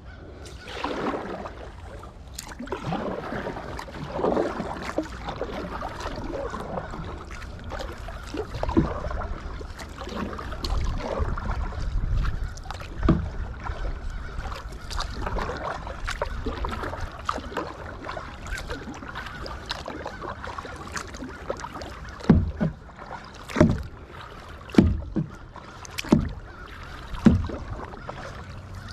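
Kayak paddle dipping and pulling through the water, with splashing and dripping, and a low wind rumble on the microphone. In the last few seconds the strokes come evenly, about one a second.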